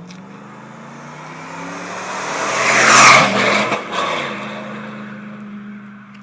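2008 Ford F-150 with a Thrush aftermarket exhaust accelerating past, its engine note rising in pitch and loudest about three seconds in, then fading as it moves away.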